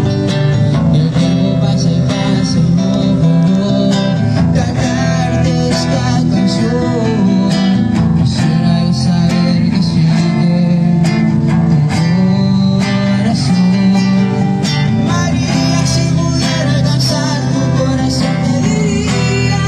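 A guitar-led song playing loud and continuous through a JBL PartyBox 110 portable speaker during a sound test.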